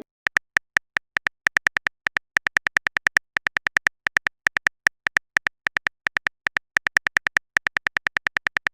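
Phone-keyboard typing clicks from a chat app's sound effect, short and even, about five a second in little runs with brief pauses, as a text message is typed out.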